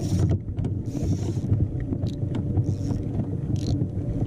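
Wind rumbling on the microphone on a kayak at sea, with a few short hissy bursts over it about a second apart.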